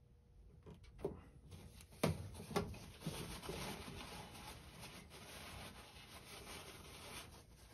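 White PVC drain fitting handled and twisted into place on the condensate outlet: a few sharp plastic knocks in the first seconds, then steady scraping and rubbing of plastic on plastic.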